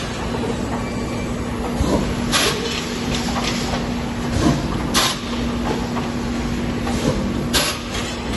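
Double rotary egg tray forming machine running, a steady mechanical clatter with a hum that stops near the end, and a short sharp hiss about every two and a half seconds as each moulding cycle comes round.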